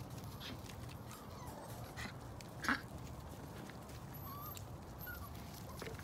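Young puppies giving a few short yips and small high squeaks, with one louder sharp yip a little before the middle.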